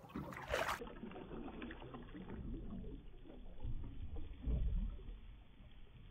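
Wind buffeting the microphone over water lapping against the side of a boat, an uneven low rumble with a couple of louder gusts.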